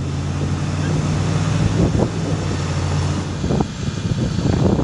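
A steady low engine hum under wind noise on the microphone; the hum cuts off about three and a half seconds in.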